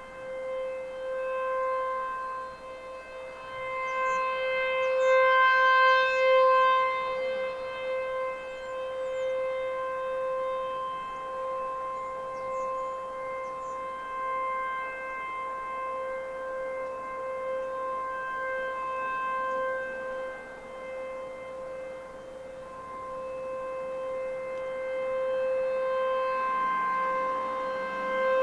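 American Signal T-128 outdoor warning siren sounding a steady single-pitch tone during a siren test. Its loudness swells and fades, loudest about five seconds in and building again near the end.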